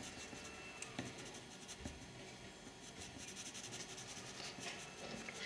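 Graphite pencil scratching faintly on paper as short hatching strokes are shaded in.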